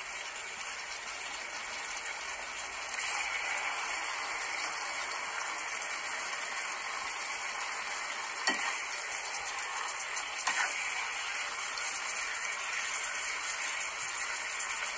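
Mushroom stir-fry sizzling steadily in a nonstick frying pan, a little louder from about three seconds in. Two short clicks of a serving utensil against the pan or plate come about two-thirds of the way through.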